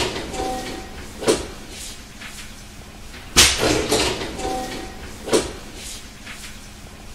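Munich U-Bahn train's sliding doors working, heard twice: each cycle starts with a sudden hiss of air that fades over about a second, carries a brief faint tone, and ends in a short thump about two seconds later.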